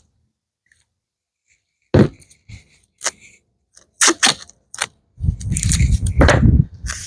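Handling noise from labelling seed containers with clear tape. A few sharp clicks and taps come first, then a longer scraping rustle about five seconds in.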